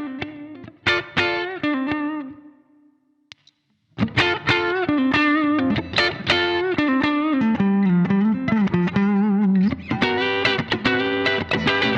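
Clean electric guitar, an Ibanez on its neck pickup, played through a clean amp with a little room reverb: single-note licks that ring out and fade away about two and a half seconds in, then playing resumes about a second later with busier lines and chords toward the end.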